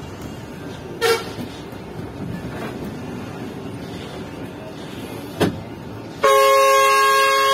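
Coach cabin noise: steady engine and road rumble with two short sharp knocks. Then, about six seconds in, a very loud air horn starts suddenly and holds, sounding a steady chord of several notes.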